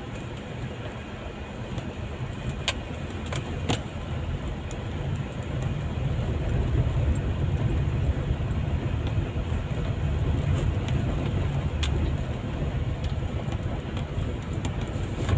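Heard from inside a car's cabin, the car drives over a rough dirt and gravel road with a steady low rumble of engine and tyres. A few sharp clicks or rattles come through, and the rumble grows louder about six seconds in as the car picks up speed.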